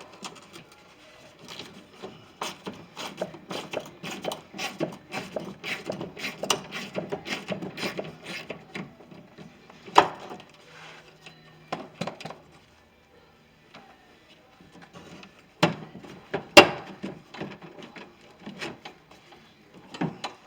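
Ratchet wrench clicking in quick strokes as a window regulator bolt inside a pickup truck door is loosened, followed by a few sharp metallic knocks from parts inside the door.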